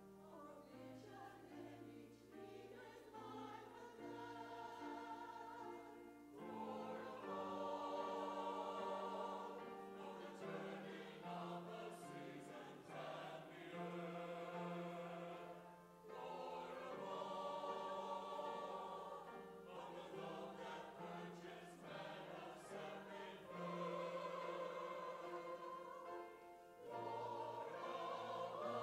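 Mixed choir of men and women singing a hymn in long sustained phrases, each new phrase entering louder after a short break.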